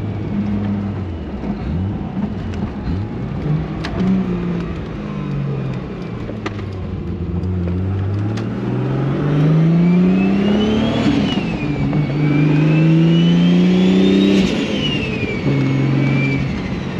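Toyota Supra's engine heard from inside the cabin, running at light throttle and then accelerating from about eight seconds in, its pitch climbing twice and dropping back in between. A high whine rises and falls along with the engine.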